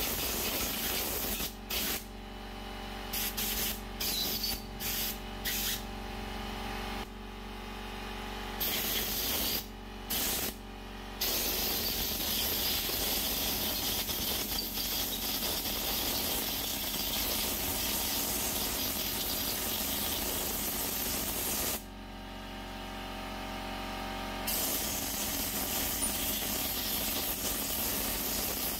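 Compressed-air blow gun hissing as it blows out the passages of a GM 6L80 transmission valve body. Several short blasts with brief gaps, then a long steady blast of about ten seconds, a pause of two to three seconds, and another long blast.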